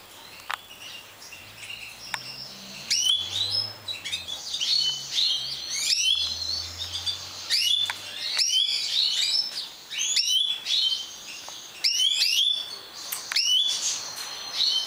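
European goldfinches of the large 'major' race singing and calling: quick twittering phrases and chirps, loud bursts coming every second or two.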